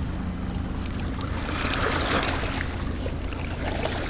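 Steady low engine drone, with a swell of water wash about two seconds in.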